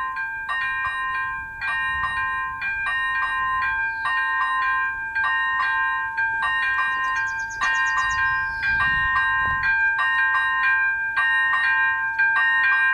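Czech level-crossing warning bell (AŽD ZV01 electronic bell) dinging in a fast, even rhythm with the warning lights active, signalling an approaching train. A brief low rumble rises and falls about 8 to 9.5 seconds in.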